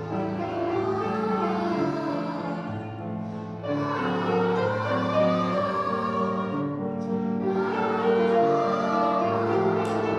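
Music with singing voices: a song with sustained, held notes.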